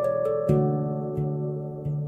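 Calm ambient new-age music of held, slowly fading tones. New low notes are struck about a quarter of the way in and twice more before the end.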